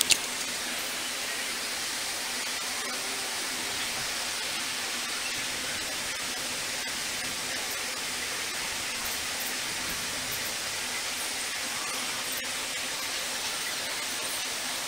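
Steady, even hiss with no rhythm or pitch, and a single sharp click right at the start.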